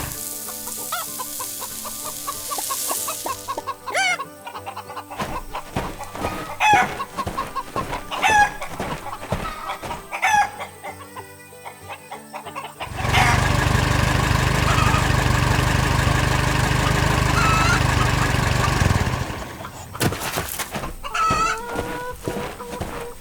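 Cartoon farmyard sound effects: chickens clucking and a rooster crowing over light background music. A loud steady drone comes in about halfway through and stops a few seconds later, and a long crow-like call sounds near the end.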